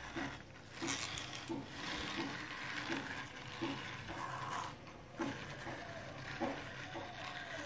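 Plastic toy tuk-tuk rolled by hand across a tiled floor, its wheels and plastic body giving a steady mechanical rattle with a short click about every two-thirds of a second.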